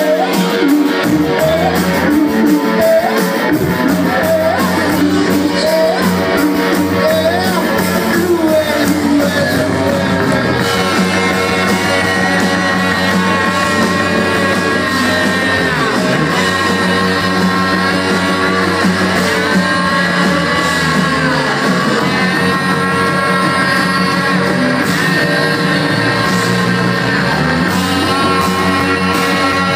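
Live rock band playing loud: drums, electric guitars and a singing voice, heard from the audience in a large hall.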